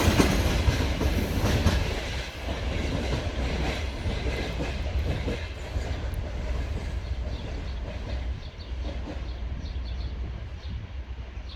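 Freight train rolling past with wheels clacking over the rail joints, growing gradually quieter.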